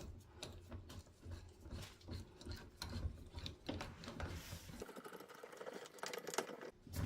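Quiet, irregular clicks, taps and scrapes of a Phillips screwdriver turning screws and plastic parts being handled while a part is fitted back onto a pressure washer's frame.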